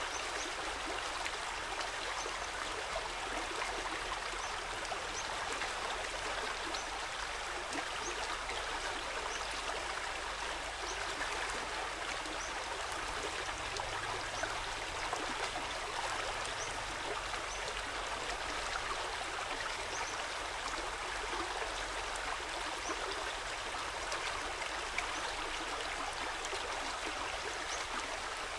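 Steady rush of water flowing in a small stream.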